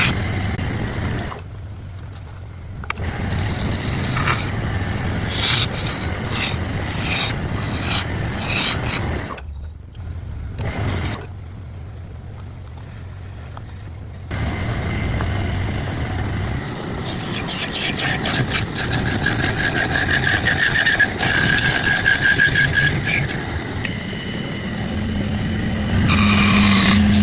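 Woodworking tool sounds, cut together from several takes: a motor hums steadily under repeated scraping and rasping strokes on wood. In the second half a whining tone rises over the work.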